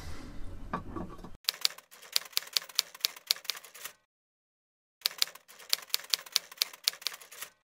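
Typewriter keystroke sound effect: two runs of rapid clacks separated by about a second of silence, following about a second of faint room sound.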